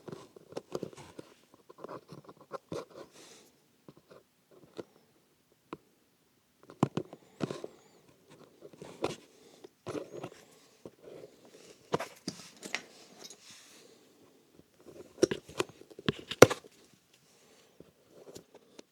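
Old welt stitching being picked, cut and pulled out of a leather shoe by hand: irregular small clicks, snaps and scratchy tearing sounds with short pauses between, a few sharper snaps near the end.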